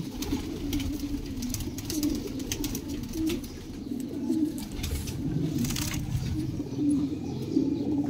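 Domestic pigeons cooing, a low wavering warble that comes and goes repeatedly, with a brief rustle a little before six seconds in.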